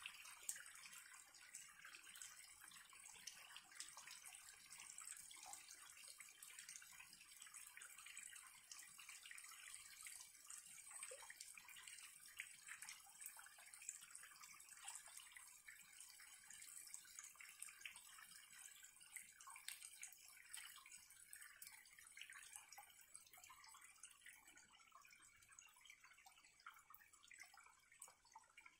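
Faint small cascade of mountain water trickling and splashing over stones, with many small irregular drips and splashes.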